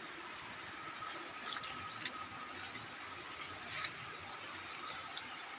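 Steady rush of a flowing river, with a thin steady high tone above it and a few soft rustles of plants.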